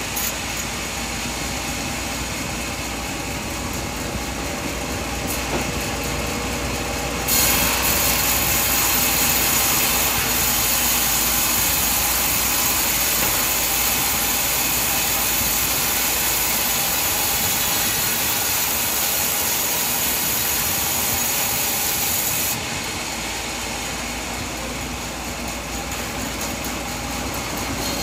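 Sawmill bandsaw running steadily through coconut tree trunk, a continuous machine noise that turns louder and brighter about seven seconds in and drops back about fifteen seconds later.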